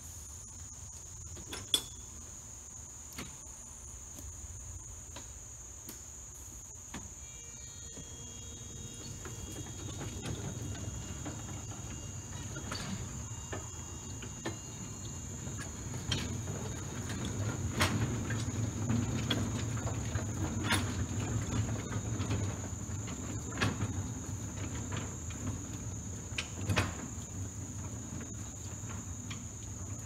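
Small 2-foot-gauge electric train, a steeple cab locomotive hauling a gondola and a flatcar, rolling along the track. A low rumble of wheels on rail with scattered clicks and clanks builds from about ten seconds in and is loudest in the second half. Crickets trill steadily throughout.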